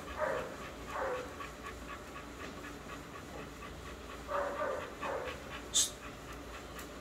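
A dog whining in short bursts, about five times. A brief high-pitched metallic jingle comes about six seconds in, typical of a leash chain or collar clip.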